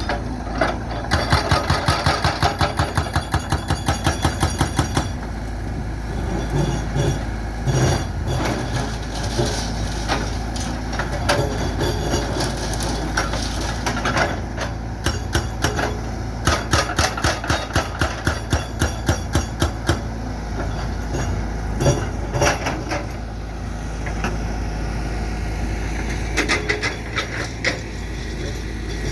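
Sany excavator with a hydraulic breaker hammering concrete in two runs of rapid, even blows, about four a second, over the steady diesel engine, with scattered single knocks between.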